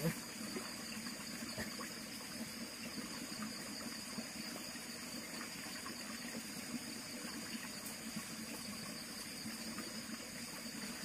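Steady trickle of stream water running over rocks.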